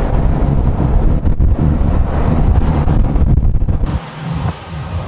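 Wind buffeting the microphone, a loud low rumble with noise and no clear tones. The sound changes abruptly and drops a little about four seconds in.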